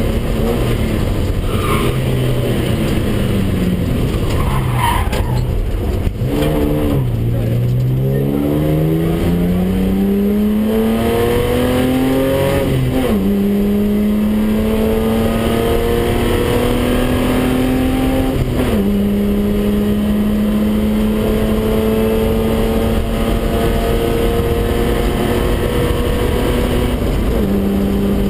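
BMW 320/6 straight-six engine under hard driving, heard from inside the cabin. The revs fall about four to seven seconds in, then climb as the car accelerates through the gears. Sharp upshifts come at about thirteen and nineteen seconds in, and another near the end.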